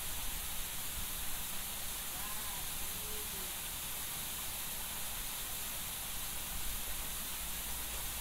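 Steady rushing hiss of a small waterfall pouring down a rock face into a river pool.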